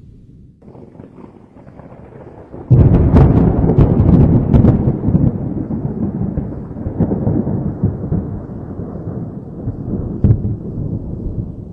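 Thunder: a low rumble builds with crackling about half a second in, then a loud, close thunderclap with sharp cracks breaks about three seconds in and rolls on as a long rumble that slowly fades, with one more crack near the end.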